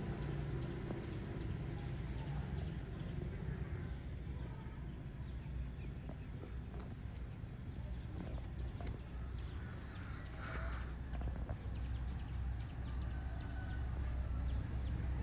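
Outdoor ambience: short high chirps repeating every second or two over a steady low rumble, with a few soft clicks and taps.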